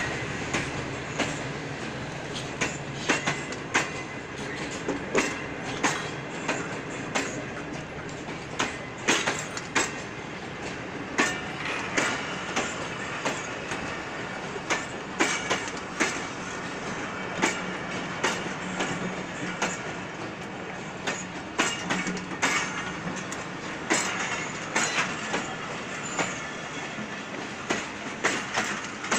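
Pakistan Railways passenger coaches rolling slowly past, their wheels clicking and clacking over the rail joints in a running series of knocks over a low rumble.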